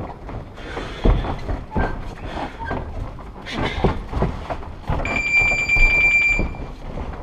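Boxing gloves thudding on gloves and body and feet shuffling on the ring canvas during sparring. About five seconds in, a steady, rapidly pulsing electronic beep sounds for about a second and a half.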